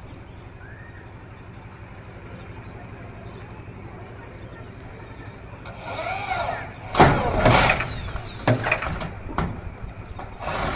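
Power drill driving screws into metal roofing sheet: short bursts of motor whine that rise and fall in pitch, with sharp knocks and metallic clatter, starting about six seconds in after a low steady background hum.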